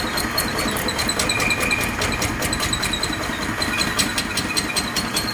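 Single-cylinder diesel engine of a two-wheel walking tractor running steadily at idle, its firing strokes a fast, even knocking.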